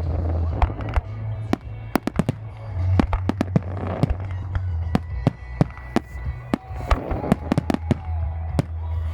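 Fireworks display: a rapid series of sharp bangs from bursting shells, about three a second, with music playing underneath.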